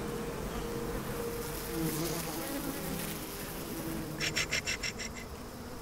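Honey bees buzzing in a steady drone, with a brief fast rattle of high clicks about four seconds in.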